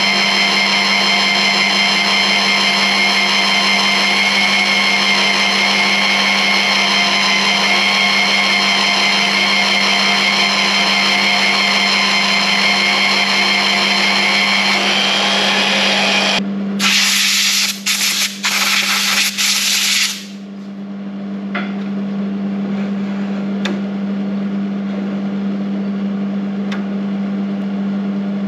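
Magnetic drill press running and drilling into steel plate: a steady high motor whine over a low steady hum. About 16 seconds in come a few seconds of louder, harsh, choppy grinding that starts and stops abruptly, and after that the drill runs on more quietly.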